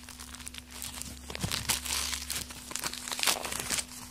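Gift wrapping crinkling and tearing as a small ball-shaped present is unwrapped by hand: a dense, rapid crackle that is loudest in the middle.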